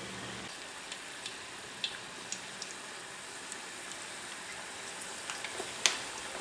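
Battered shrimp and drips of batter deep-frying in a pot of hot oil: a steady sizzle with scattered small pops and crackles, and one sharper click near the end.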